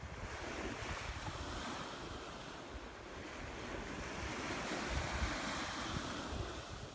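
Ocean surf washing onto a rocky, sandy shore, a steady hiss that swells slowly twice, with low wind rumble on the microphone.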